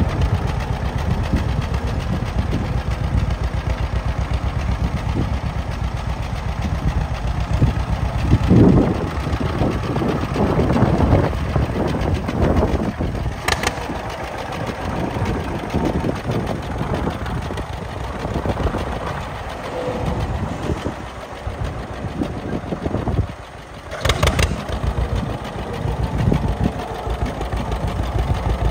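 1951 John Deere Model A tractor's two-cylinder engine running with an even, rapid firing beat while the tractor drives at low speed. About three-quarters of the way through, the sound drops away for a moment and then returns.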